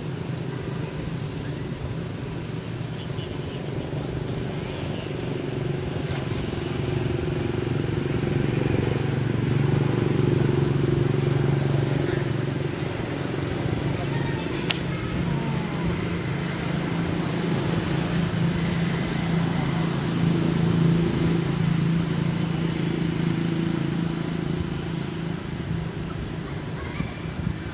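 A motor engine running steadily, a low hum that swells louder twice. A single sharp click about halfway through.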